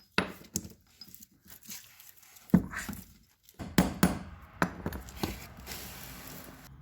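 Hammer strikes on the metal casing of a submersible motor, driving in the pins that hold its body so it can be opened: about seven irregular knocks, with a scraping rustle near the end.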